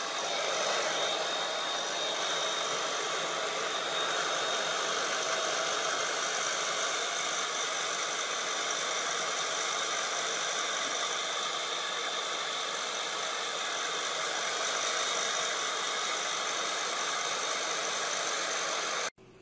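Handheld hair dryer running steadily: a rush of blown air with a thin, steady high whine from its fan motor. It cuts off suddenly near the end.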